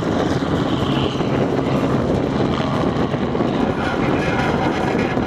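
Robinson R44 helicopter flying low past and climbing away: steady rotor chop over the hum of its six-cylinder piston engine.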